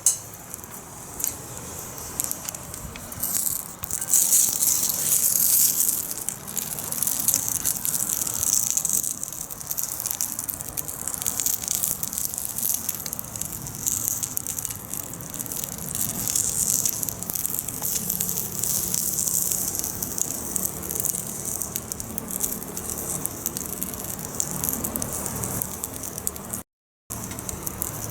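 Wood fire burning in a secondary-combustion fire pit: a steady rushing hiss with dense small crackles and pops throughout, briefly cut off near the end.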